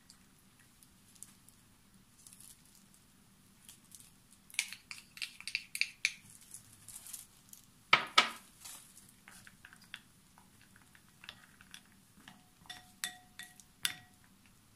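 Kitchen utensils clicking and tapping against a glass mixing bowl as ingredients go in. A loud double knock comes about halfway through. Near the end a wooden spatula taps the bowl as the mix is stirred, some taps leaving a brief ringing note from the glass.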